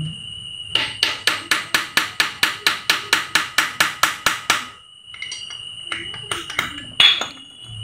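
A ratchet wrench clicking evenly, about five clicks a second for some four seconds, as an engine bolt is worked loose. Then a few scattered light metal clinks and one sharper clack near the end.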